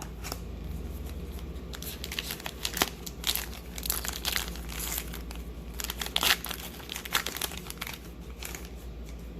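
A trading-card pack wrapper being crinkled and torn open by hand, a run of irregular crackles and rustles.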